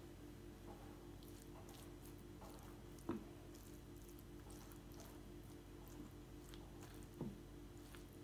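Metal spoon spreading leek filling over a yufka pastry layer in a baking tray: faint soft squishy scraping, with two light knocks about three and seven seconds in, over a faint steady hum.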